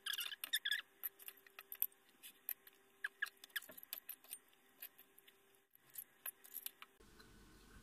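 Knife and fork scraping, squeaking and clinking on a plate while cutting French toast: a run of short squeaks and clicks, busiest in the first second, then sparser taps. Near the end the background switches abruptly to a steady low hum.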